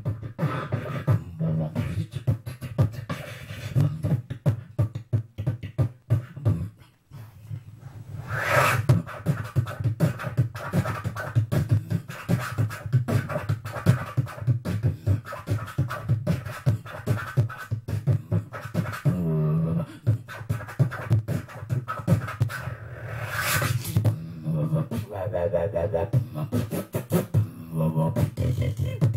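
Beatboxing close into a handheld corded microphone: a fast run of mouth-made drum hits over a heavy bass. A long hissing sweep comes about eight seconds in and again about fifteen seconds later.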